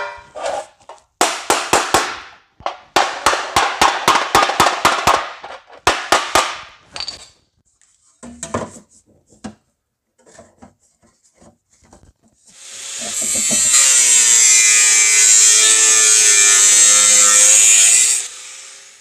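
A quick run of hammer blows on 18-gauge sheet steel as a patch panel is bent over a bar, about four strikes a second in bursts. After a pause, a handheld power tool runs steadily for about six seconds, loud and high-pitched, which is the loudest sound.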